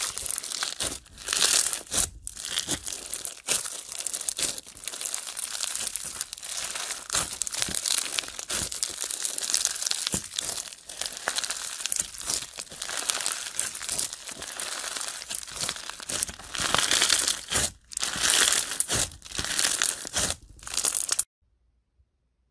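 Crunchy slime full of small beads being squeezed, folded and stretched by hand, giving a dense, loud crackling with brief pauses between squeezes. It cuts off suddenly near the end, leaving near silence.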